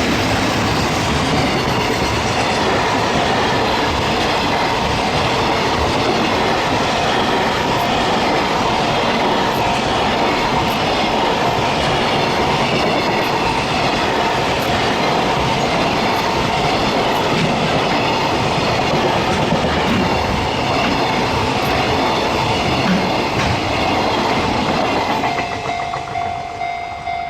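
Freight train wagons rolling past at close range, a loud steady rush of wheels on rail with a clickety-clack over the rail joints. Near the end the train noise fades and the level crossing's warning bell tone is heard again.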